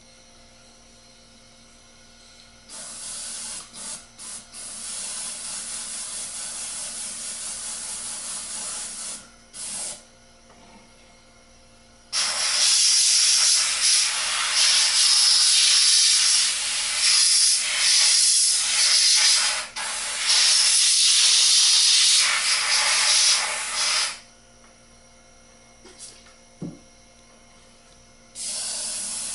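Airbrush spraying at 60 psi through a homemade screen-covered nozzle cap: compressed air hissing in bursts. There is a softer burst of about six seconds, a brief puff, then a louder one of about twelve seconds, and it starts again near the end. A faint steady hum runs underneath.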